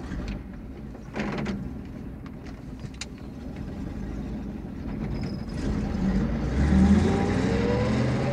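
Sound effect of a heavy lorry setting off: a slam and a few knocks, then the engine running and revving up as it pulls away, its pitch rising over the last few seconds.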